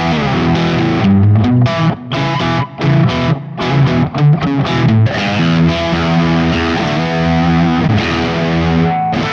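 Electric Telecaster fitted with Dreamsongs Vintage '50s Tele pickups, played with a crunchy, distorted tone. About a second in, it plays a run of short, choppy notes with gaps between them. Over the second half come longer held notes.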